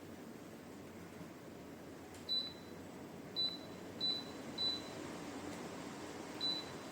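Dreo tower fan running with a steady rush of air, and five short high beeps from the fan, sounding as its settings are changed.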